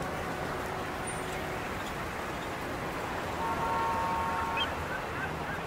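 Steady city street noise, a constant rumble and hiss of traffic and movement. About three and a half seconds in, a honking tone of several steady pitches sounds for about a second, followed by a few short chirping glides.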